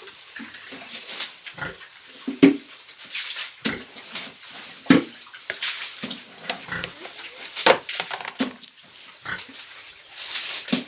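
Pigs grunting, a string of short, irregular grunts and snuffles, several louder ones standing out.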